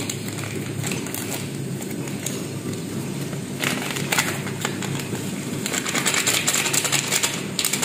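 Plastic spice sachet crinkling as it is torn open and its ground coriander shaken out: short crackly rustles about three and a half seconds in, then a longer spell of crinkling near the end, over a steady low hum.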